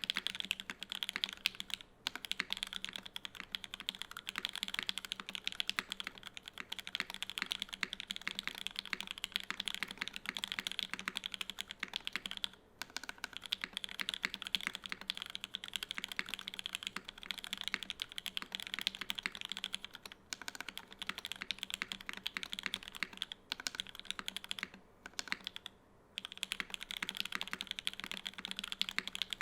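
Continuous fast typing on a custom mechanical keyboard: a KFE CE with an aluminum plate, stem-lubed CannonKeys Lavender linear switches and GMK Taro keycaps. The key clicks run with a few short pauses, the longest near the end.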